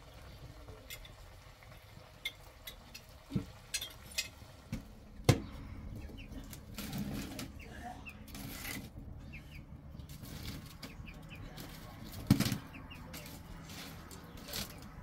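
Irregular clicks and knocks, two of them louder, about five seconds in and near the end, with a few faint bird chirps in between.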